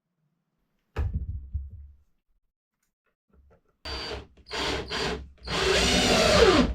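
Power drill run in three short bursts, then a longer run whose pitch drops as it ends. A knock comes about a second in.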